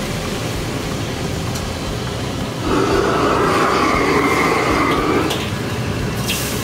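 High-output gas wok burner roaring steadily. About three seconds in it grows louder for a couple of seconds while the wok is tipped off the open flame. A few short metal clicks from the wok and ladle come near the end.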